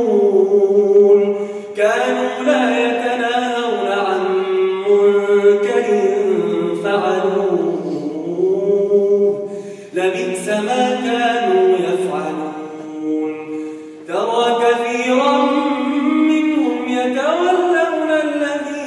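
Solo male voice reciting the Quran in a melodic chanted style, with long held phrases that slide up and down in pitch. Short breaths break the phrases about two, ten and fourteen seconds in.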